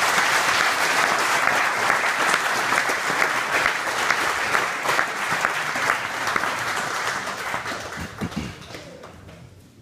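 A small audience applauding, many hands clapping together, thinning out and dying away over the last couple of seconds.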